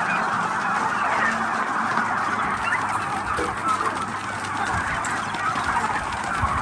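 A large flock of domestic turkeys calling all at once: a dense, steady chatter of many overlapping calls with no single bird standing out.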